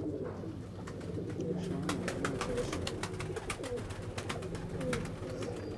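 Several pigeons cooing, low wavering coos overlapping one another, with many short sharp clicks through the middle seconds.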